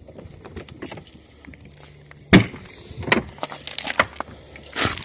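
A bunch of keys jangling on its ring, with a loud sharp clack about two seconds in as the car's door latch releases and the door is opened, followed by more jingling and small clicks.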